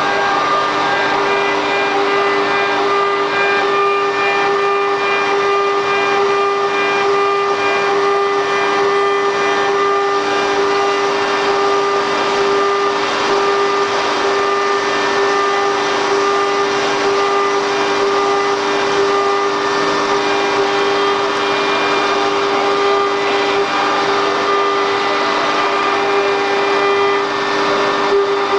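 QS6090 CNC router running with its spindle holding a steady high hum over a continuous noisy hiss, as in cutting.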